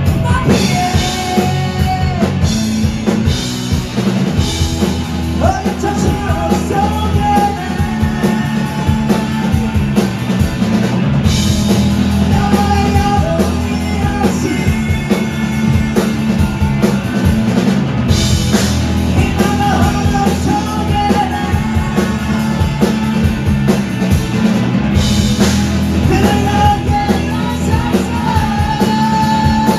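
Live rock band playing loud: electric guitars over a drum kit, with a melody in long held notes that comes and goes over the top.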